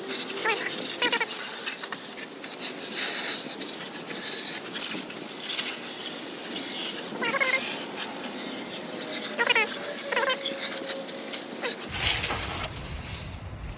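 Pressure washer water jet spraying and spattering on a steel truck frame, with short high squeaky chirps several times. Near the end the spray hiss drops away and a low rumble comes in.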